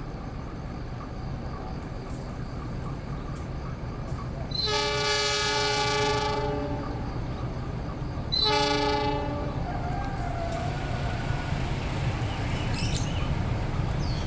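KAI diesel locomotive horn sounding two multi-tone blasts, a long one about four seconds in and a shorter one a few seconds later, over the steady low rumble of the diesel locomotive running into the station.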